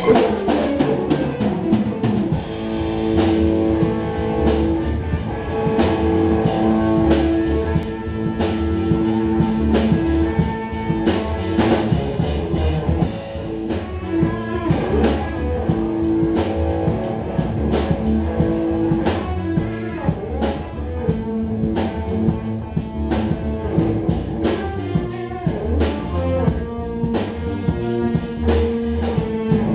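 Live rock band of guitar, bass guitar and drum kit playing an instrumental passage: sustained guitar notes over bass and steady drum hits. The recording sounds dull, with no treble above about 4 kHz.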